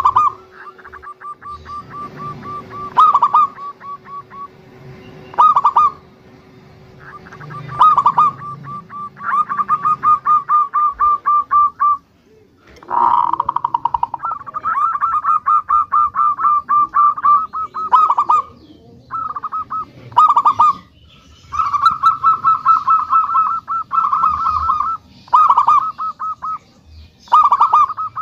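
Zebra dove (perkutut) cooing: strings of rapid staccato coos rolled together, each run lasting one to a few seconds, repeated over and over with short pauses between.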